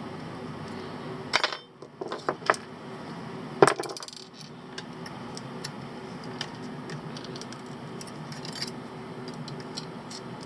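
Small metal tools and parts clicking and clinking against each other while a multimeter is taken apart. A few sharp clicks come in the first four seconds, the loudest about three and a half seconds in, then lighter ticks over a steady hum.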